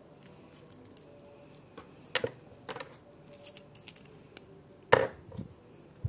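Small hard parts and tools clicking and tapping as they are handled: about a dozen irregular sharp clicks, the loudest about two seconds in and near five seconds in.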